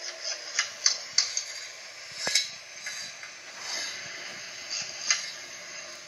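A few sharp, irregular clicks and ticks over a steady hiss, the sharpest about two seconds in and another near the end.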